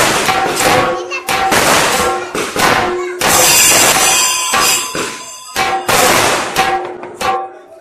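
Chenda melam: several chenda drums beaten with sticks in a fast rhythm, with elathalam hand cymbals ringing in time. About three seconds in the drums run into a dense roll for over a second, and the playing dies down near the end.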